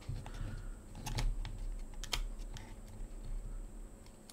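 Thin masking tape being handled and pressed along the edge of a plastic model's fin by hand: faint crinkling with a few sharp little clicks.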